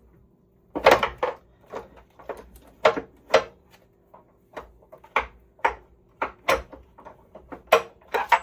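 A 12-point socket on the rusted hex head of a water heater anode rod, repeatedly popping and snapping off instead of turning it: about fifteen sharp, irregularly spaced clacks. The owner puts the slipping down to the 12-point socket not gripping tightly enough.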